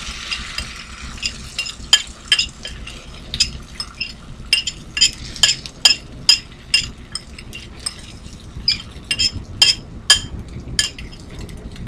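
Beaten egg hitting a hot frying pan with a brief sizzle at the start. Then a utensil clinks and scrapes against a ceramic mixing bowl about two dozen times at an irregular pace as the last of the egg is worked out into the pan; the clinks are sharp and ringing.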